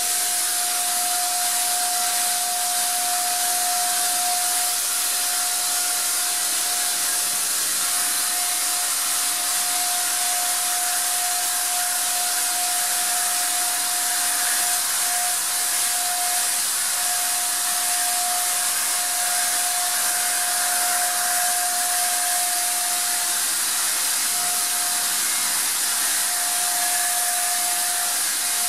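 Wagner 150 electric paint sprayer running steadily while spraying paint: a constant rush of air with a steady whine over it.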